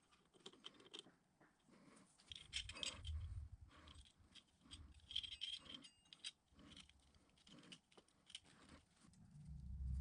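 Faint, irregular small metal clicks and scrapes as a coiled flat drill-press quill return spring and small steel parts are handled and gripped with pliers. A low rumble comes in briefly a couple of seconds in and again near the end.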